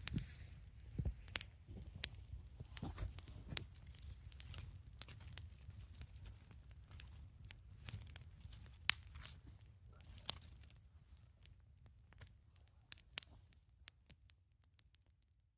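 Wood campfire crackling: irregular sharp pops and snaps over a low steady rumble, thinning out and fading away near the end.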